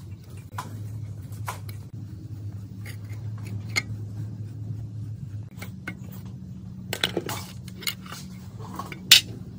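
Screwdriver working a rusted screw out of an old overlock sewing machine's metal plate: scattered light metal clinks and taps, a quick cluster of clicks about seven seconds in and a sharper clink near the end.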